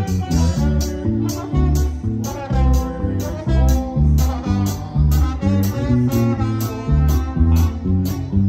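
Live regional Mexican band playing an instrumental passage: electric guitar lines over bass and a steady drum beat of about three strikes a second.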